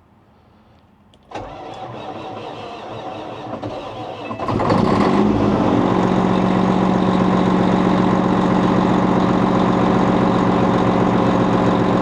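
Detroit Series 60 inline-six diesel in a Peterbilt 389 semi truck being cranked by its starter for about three seconds, then catching and settling into a steady idle. The batteries may be low on charge from the failed alternator.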